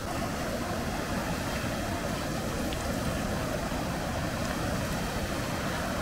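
Steady rush of a mountain stream's running water.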